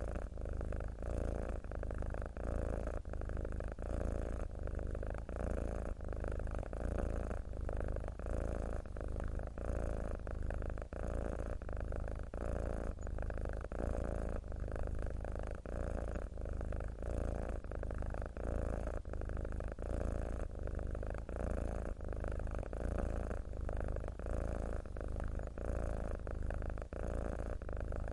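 Domestic cat purring steadily, the purr of a contented cat, swelling and dipping in a regular rhythm about once a second as it breathes in and out.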